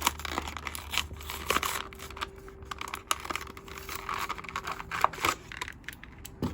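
Plastic blister packaging and cardboard backing card of a 1/64 die-cast toy truck being torn and crinkled open by hand, with irregular crackles and sharp clicks.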